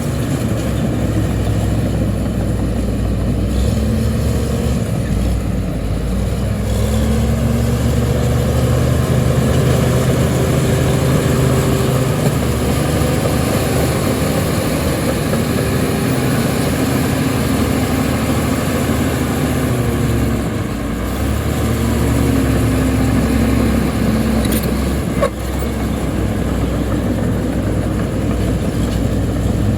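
Diesel engine of heavy earthmoving machinery running steadily, its pitch rising and falling a few times as it works. A single sharp knock comes near the end.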